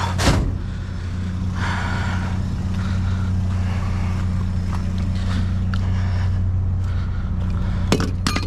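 A vehicle engine idling steadily with a low hum. A sharp knock comes just after the start, and a couple of clicks come near the end.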